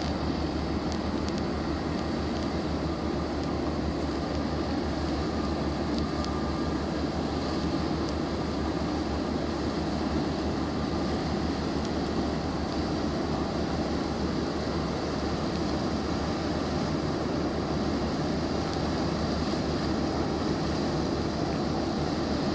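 Steady low drone of a large container ship's engines as it passes close by, under a constant hiss of wind and water.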